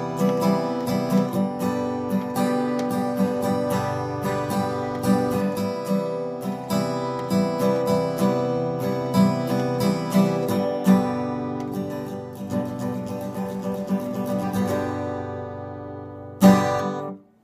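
Acoustic guitar strummed in a steady rhythm as the instrumental close of a folk-rock song. The strumming thins and fades toward the end, then one last loud strum rings briefly and cuts off suddenly.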